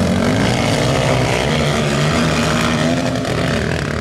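Racing quad engines running hard, their pitch shifting up and down as the riders work the throttle.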